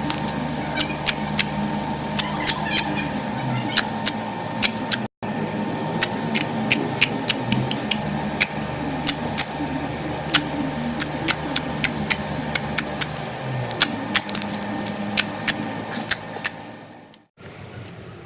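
Slime being worked by hand, giving off sharp irregular clicks and pops, several a second, over a steady low hum. The sound breaks off briefly twice.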